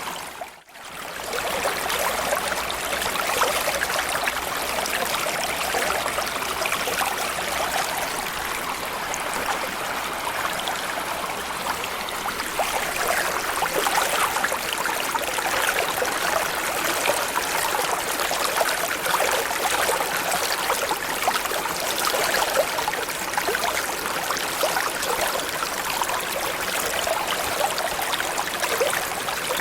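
Small stream or creek flowing steadily, water burbling and trickling over stones. The sound briefly drops away and fades back in about half a second in.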